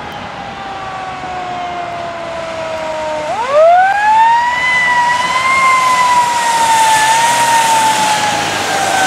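Fire engine siren slowly winding down, then sweeping back up to a high, slightly wavering pitch about three seconds in, and starting to fall again near the end. Late on, a car's tyres hiss past on the wet road.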